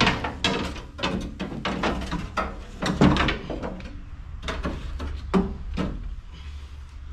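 A loose window glass being worked up and out of a 60 series Land Cruiser's door shell: a run of irregular knocks and clunks of glass against the steel door and its frame, the loudest about three seconds in.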